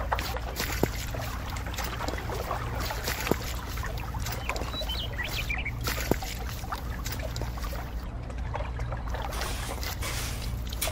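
Wet concrete pouring and slopping off a miniature chute into a small form, over a steady low hum, with a few sharp clicks.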